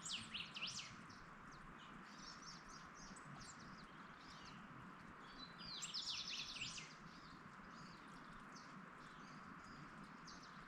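Wild birds chirping and calling: a few quick high downward-sweeping chirps at the start, scattered chirps, and a fast run of rapid repeated notes about six seconds in. A steady faint hiss of background ambience lies underneath.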